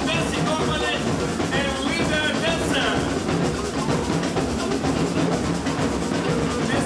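Live Brazilian samba music: drums and percussion keep a busy, steady beat, with voices over it.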